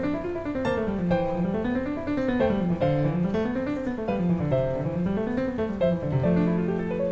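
Classical piano music: a flowing line of notes that rises and falls in repeated waves.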